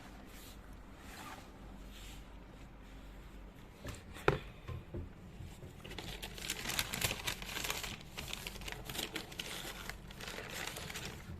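Shoebox being opened and the shoes unwrapped from their paper packaging. There is a sharp click about four seconds in, then a few seconds of dense paper crinkling and rustling.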